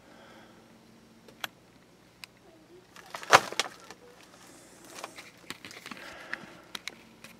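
Rustling and scraping of someone shifting over plastic vapor-barrier sheeting and debris in a crawlspace, with scattered sharp clicks and one loud crackle about three seconds in.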